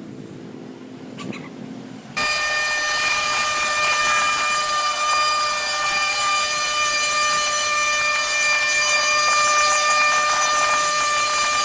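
A machine with a steady high-pitched whine and hiss comes in abruptly about two seconds in and runs at a constant speed.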